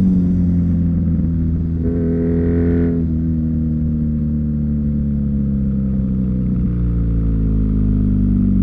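BMW R NineT's boxer twin running through an Akrapovic slip-on exhaust under way: revs rise quickly at the start, the note swells briefly about two seconds in, then the pitch slowly falls as the revs come down.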